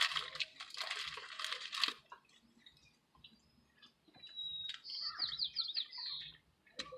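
Close, crunchy chewing for about two seconds, then a bird singing a short run of quick, high whistled notes between about four and six seconds in.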